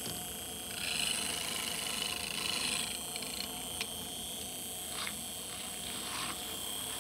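Powdered greens drink being stirred into water: a soft swishing for the first few seconds, then a few light clicks.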